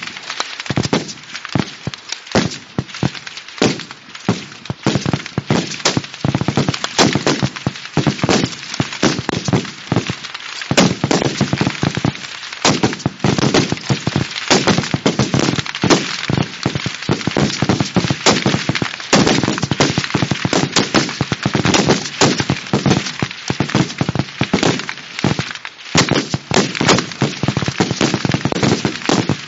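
Rifle fire from many rifles along a firing line at a long-range match: sharp shots overlapping at several a second, some much louder and nearer than others.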